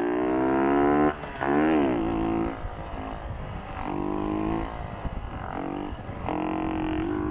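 Motorcycle engine revved hard while riding wheelies. The pitch climbs for about a second and cuts off, then rises and falls sharply. Several shorter bursts of throttle follow.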